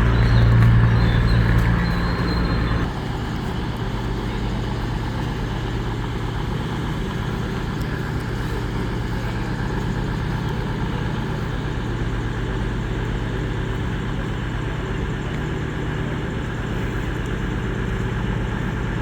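Class 221 Voyager diesel-electric unit's underfloor diesel engines running with a steady low hum, which drops a little in level about three seconds in.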